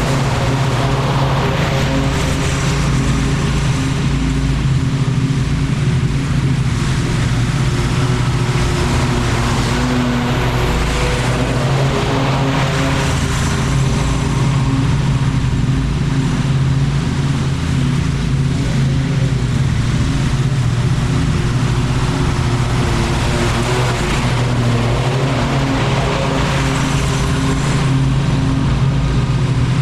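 Small gasoline engine of lawn-care equipment running steadily at a constant speed.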